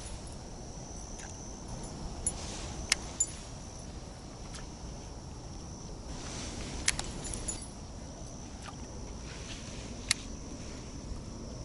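Steady high-pitched insect chorus, typical of autumn crickets, with a scattering of sharp clicks and ticks about once every second or two.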